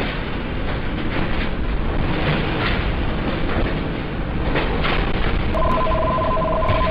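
Loud, steady rumble of earthquake shaking with crackling. About five and a half seconds in, a two-tone electronic alert starts beeping rapidly and keeps going.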